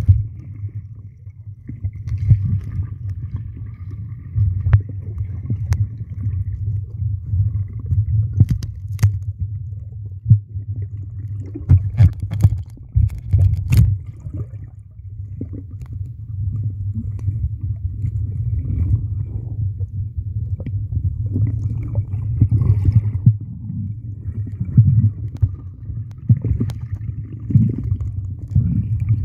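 Swimming-pool water heard underwater through a submerged microphone: a steady low rumble that swells and churns with the movement, with bubbling and a few sharp clicks, most of them between about eight and fourteen seconds in.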